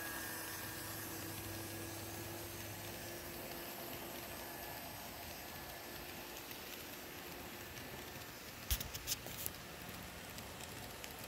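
Model diesel locomotive's sound running as the train moves along the layout: a faint low engine hum that fades within the first few seconds under a steady hiss. About nine seconds in there is a quick cluster of sharp clicks.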